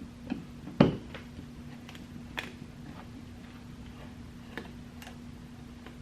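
Scattered light clicks and taps of a screwdriver and screws as a wall light switch and its cover plate are unscrewed, the loudest just under a second in, over a steady low hum.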